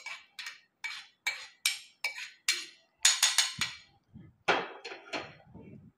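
Steel spoon scraping boiled date and tamarind pulp out of a wok and pressing it into a stainless-steel mesh strainer, in a run of short scrapes and clinks about two a second.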